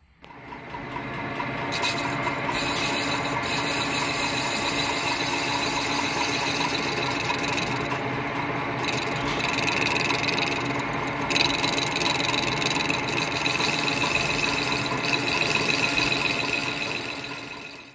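Metal lathe running while a cutting tool machines the face of a Powerglide transmission's high gear clutch piston: a steady cutting and rubbing noise over the lathe's whine, taking material off the piston. It fades in at the start and out at the end.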